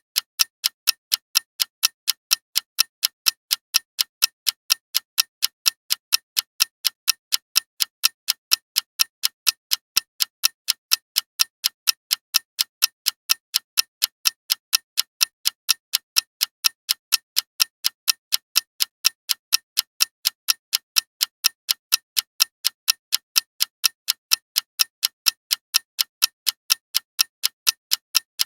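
Clock ticking: sharp, even ticks at a steady rate of several a second, never changing.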